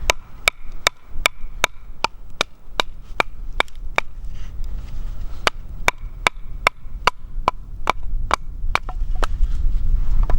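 Batoning: a wooden baton strikes the spine of a hollow-ground fixed-blade knife in a steady rhythm, about two and a half blows a second, driving the blade down through a piece of wood. There is a short pause in the blows about four seconds in.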